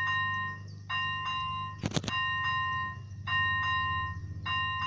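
Railway level-crossing warning bell ringing, a clear bell tone struck over and over about once a second, over a steady low hum. Two sharp clicks come about two seconds in.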